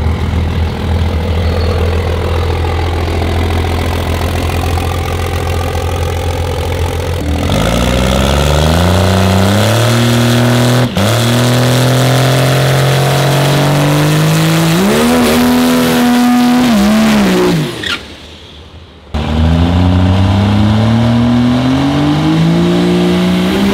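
Dragster engine idling, then revving hard in a burnout, its pitch climbing in steps and falling back twice. It drops away briefly near the end and then revs up again, rising steadily.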